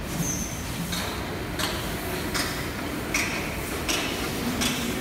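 Factory hall noise with a sharp click repeating about every three-quarters of a second, around an electric reach truck being manoeuvred.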